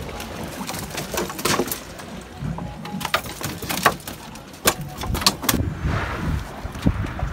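Sharp, irregular knocks and thumps of a fish and a gaff being worked inside a boat's fiberglass fish box, over background music.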